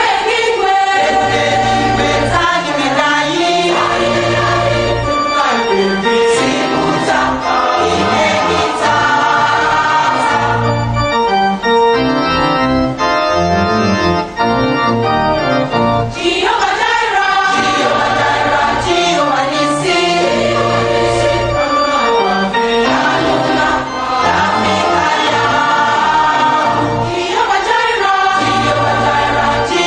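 Gospel church music: a choir singing over organ accompaniment.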